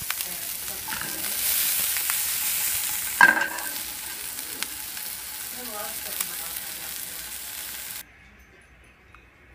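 Diced onions sizzling in a nonstick frying pan, with one sharp knock about three seconds in. The sizzle cuts off suddenly near the end.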